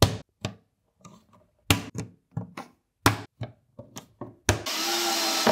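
About a dozen sharp, irregular knocks of a hand striking plastic rails into the particleboard frame of an IKEA Trofast shelf unit, clipping them into place. Near the end a cordless Makita drill-driver starts running steadily, fixing small screws into the rails.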